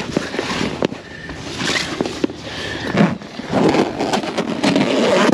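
Stiff clear vinyl enclosure panel crinkling and rustling as it is handled and fitted to a pontoon boat's bimini top, with scattered sharp clicks and knocks.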